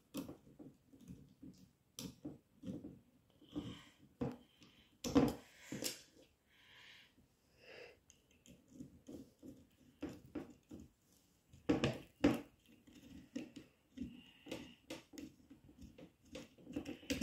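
Irregular small clicks and knocks of hands fitting a yellow plastic gear motor and small bolts onto a clear acrylic robot chassis, with a few louder knocks about five seconds in and again near twelve seconds.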